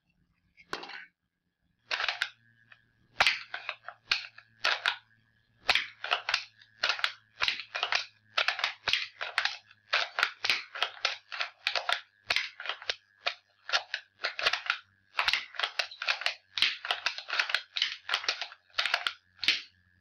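Wooden bolt-action rubber band gun being worked over and over: a long run of sharp wooden clacks and snaps from the bolt cycling and the band releasing, about two a second, starting about two seconds in.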